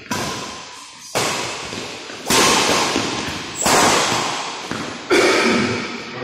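Badminton rackets striking a shuttlecock in a rally: five sharp smacks a little over a second apart, each ringing on in an echoing metal-walled hall.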